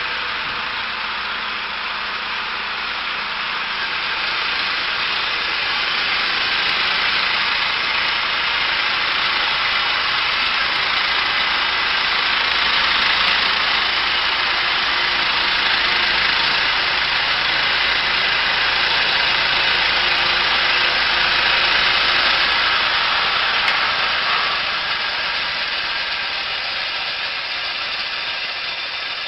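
Engine-driven heavy machinery running steadily. The noise swells a few seconds in, holds, and eases off near the end.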